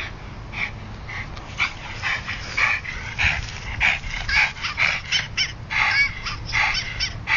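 A dog barking and yipping excitedly in short, quick calls that come faster and louder from about a second and a half in.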